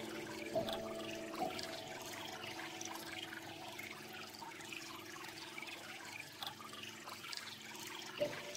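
Close crackling and rustling from ear wax being worked loose inside the ear canal, with a watery hiss and scattered small ticks. A few soft sustained music notes fade out in the first second or two.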